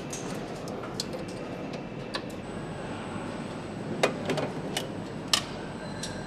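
Engine assembly-line ambience: a steady machinery hum with scattered sharp clicks and clinks of tools and metal parts, most of them in the second half.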